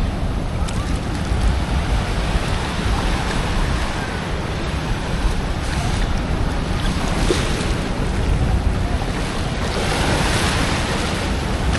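Ocean surf washing around a wader, with wind buffeting the microphone in a steady low rumble. The wash swells louder twice, about six and ten seconds in.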